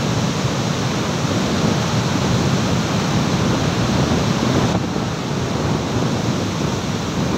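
Muddy flash-flood water and debris rushing over a boulder field in a steady, full rushing noise, heaviest in the low end.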